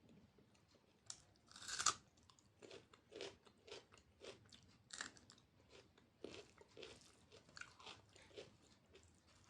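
A person chewing food close to the microphone, with one loud crunchy bite about two seconds in, followed by steady chewing at about two strokes a second.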